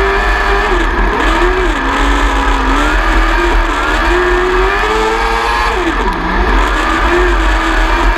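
600 micro sprint car's 600cc motorcycle engine racing on a dirt track, heard on board. The engine note falls as the throttle is lifted for the turns and climbs again on the gas, with a shallow dip about two seconds in and a deeper one about six seconds in.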